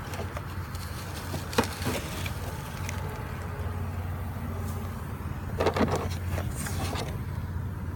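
A steady low mechanical hum, with scattered clicks and knocks and a louder burst of knocking and rattling a little past the middle.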